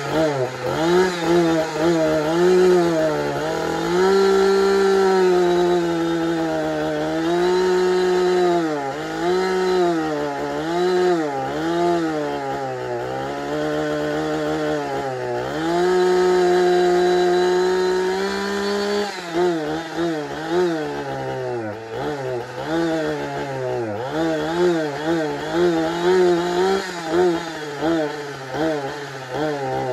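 Husqvarna 455 Rancher two-stroke chainsaw with a freshly fitted primer bulb running and being revved up and down repeatedly. Twice it is held at high revs for a few seconds, and it ends with quick throttle blips.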